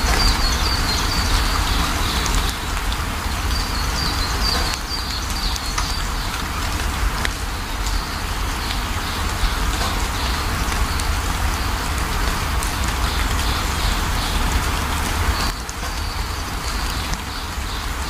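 Outdoor nature ambience: small birds chirping in repeated short, high notes over a steady rushing noise with a low rumble.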